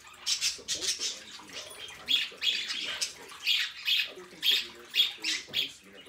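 A flock of pet budgerigars chattering and chirping, a busy stream of short, bright calls with soft warbling underneath.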